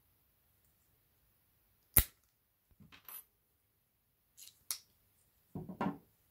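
A single sharp click about two seconds in, the loudest sound, followed by several lighter clicks and knocks and a short cluster of knocks near the end: plastic and metal parts of a turntable dust cover and its hinge being handled.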